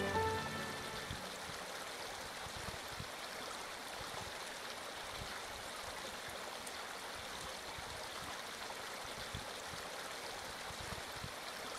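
Steady, gentle flowing water of a calm stream, with the tail of soft background music fading out in the first moment.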